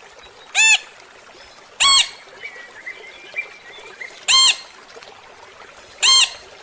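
A parrot squawking: four loud, short calls, each rising and falling in pitch, spaced one to two and a half seconds apart. Faint chirping can be heard between them.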